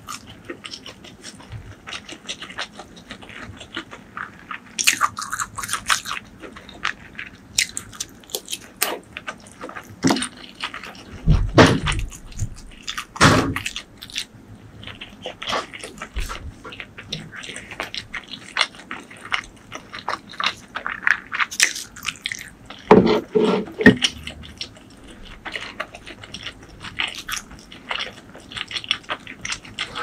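Close-miked chewing of soft steamed dumplings: wet mouth clicks and smacks throughout, with a few louder, deeper sounds near the middle and again later.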